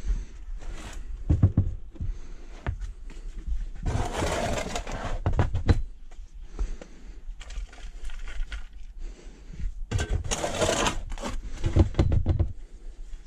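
Metal shovel scooping potting soil out of a plastic tub, with two long gritty scrapes of the blade through the soil and along the tub, and a few dull knocks as the blade hits the tub or tips soil onto the seedling trays.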